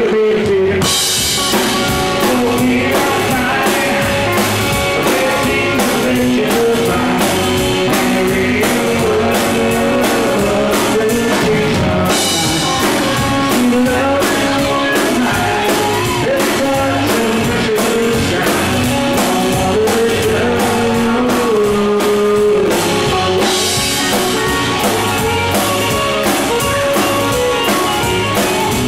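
Live country-rock band playing a song on electric and acoustic guitars over a drum kit with a steady beat, with singing.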